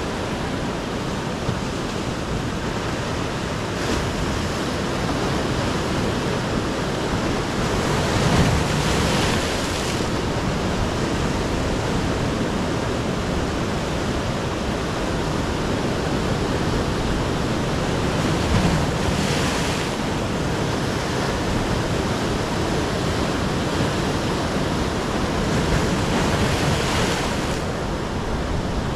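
Sea surf washing steadily onto a rocky beach, with a louder wave crashing about eight seconds in, again near twenty seconds and once more near the end.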